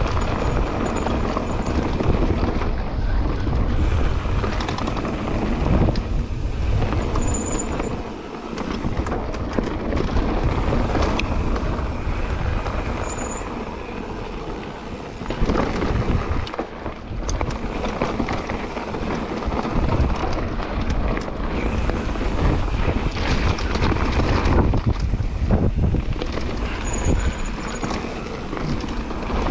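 Mountain bike ridden fast down a dirt trail: steady wind rush over the microphone with tyre noise on dirt and frequent knocks and rattles from the bike over bumps.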